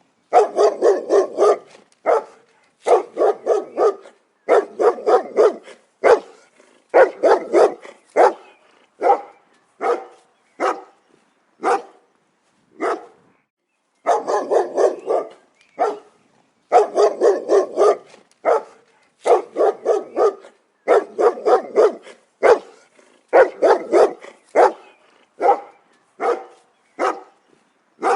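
A dog barking in quick runs of four to six barks, each run about a second long, separated by short pauses and some single barks.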